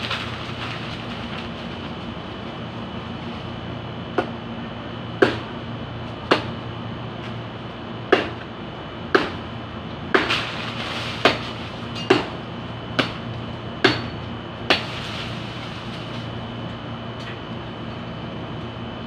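Bolo (itak, a machete) chopping into tree branches: about a dozen sharp chops, roughly one a second, starting about four seconds in and stopping about four seconds before the end, over a steady background hum.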